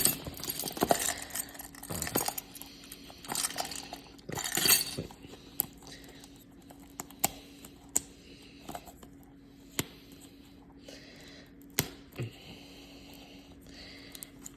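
Hands handling the plastic packaging of a 2x2 speed cube: scattered sharp clicks and taps, with rustling in the first few seconds, then only occasional single clicks.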